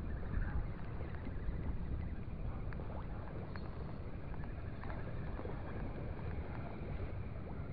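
Small spinning reel being cranked steadily to retrieve a lure, with a few faint clicks, under a steady low rumble.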